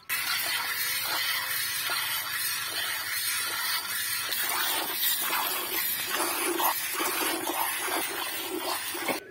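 Cow being milked by hand: streams of milk squirting into a metal bucket, a hissing spray repeating in a steady rhythm.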